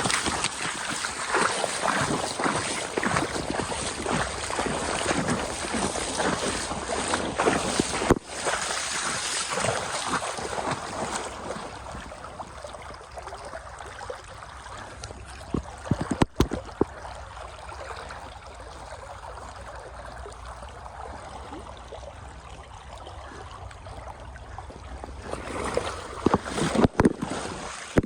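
Splashing in shallow river water over the steady rush of the current, busy for the first ten seconds or so, calmer in the middle, and splashing again near the end.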